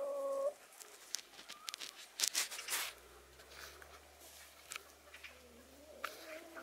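Hens dustbathing in dry leaves and dirt: a short, soft, low call at the start, then a flurry of scratching and rustling of litter, loudest around two to three seconds in, and another soft low call near the end.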